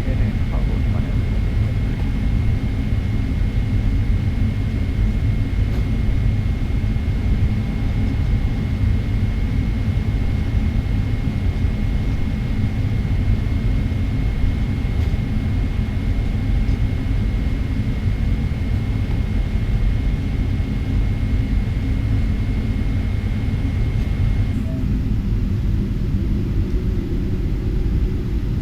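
Steady low rumble inside the cabin of a Boeing 777-300ER taxiing with its engines at idle, with a thin high whine that stops about 24 seconds in.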